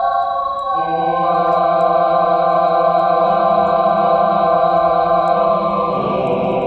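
Background music of long held chords, the chord changing about six seconds in.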